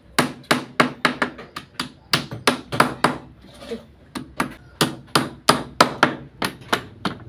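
Hammer nailing pine boards together into a fruit crate: a quick run of sharp strikes, about three a second, with a short pause around the middle.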